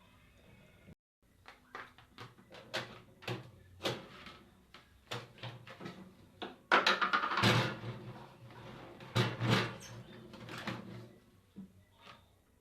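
Kitchen clatter: a string of sharp knocks and clinks of utensils and cookware, busiest and loudest about seven seconds in and again a couple of seconds later.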